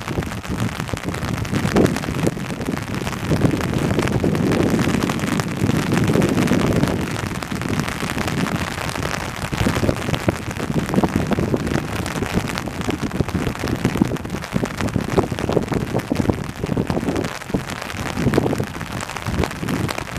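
Rain shower falling steadily, with gusts of wind rising and falling every few seconds over it.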